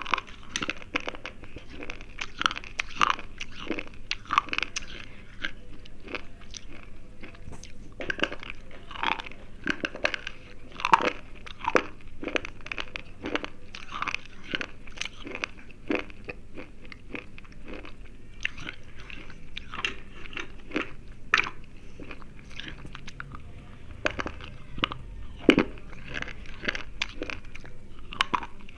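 Close-up biting and chewing of crunchy slate pencils: a run of irregular, sharp crunches as the chalky sticks snap and are ground between the teeth.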